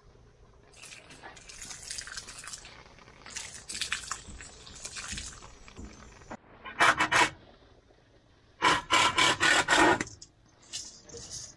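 Wet rice shifted around in a stainless-steel bowl, a soft grainy rustle, then tipped out into a pot, with two loud rushes of rice sliding and scraping off the metal, one near the middle and a longer one near the end.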